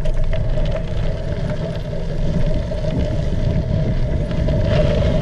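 Wind buffeting the microphone of a handlebar-mounted camera on a bicycle riding a gravel trail, with scattered clicks and rattles from the tyres and bike on the gravel. A faint steady whine runs underneath.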